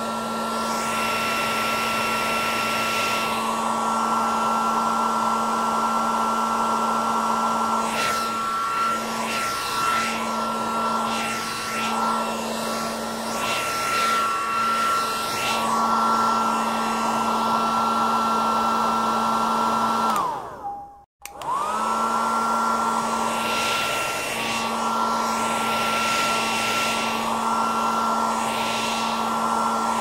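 Hair dryer blowing steadily with a whining motor tone and a slightly wavering rush of air. A little after twenty seconds in, its pitch sinks, it cuts out for an instant, and it spins back up to full speed.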